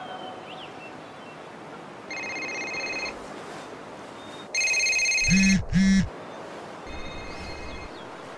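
A telephone ringing in three rings of about a second each, the middle ring the loudest, with two short low buzzes at its end.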